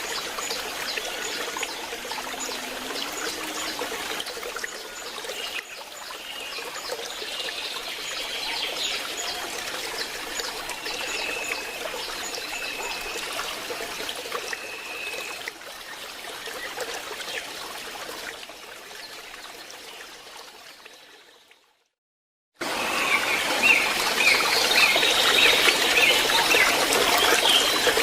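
Waterfall rushing, a steady wash of falling water with a few short high repeated notes over it. The sound fades out about three quarters of the way through and, after a second of silence, cuts back in louder.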